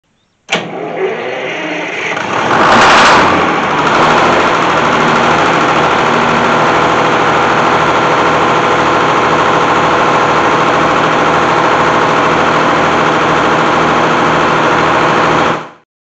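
GM Diesel two-stroke engine being cranked and catching, surging loudly about two to three seconds in, then settling into steady running with an even low throb. The sound cuts off suddenly near the end.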